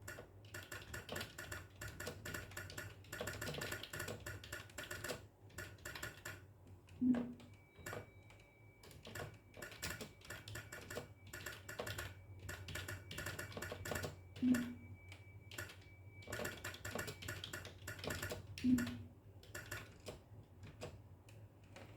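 Fast typing on a computer keyboard: runs of rapid keystrokes with short pauses, and a few heavier key thumps standing out among them.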